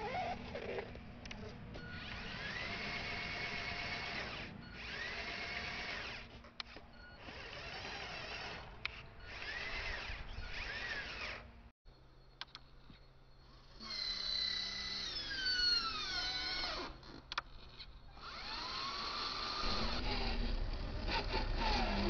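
Small electric motor of a toy RC dump truck, stuck in soft soil, whining in repeated bursts of a second or two. Each burst rises in pitch and then holds. Midway the whine falls away in several descending glides, and near the end a louder, rougher running sound takes over.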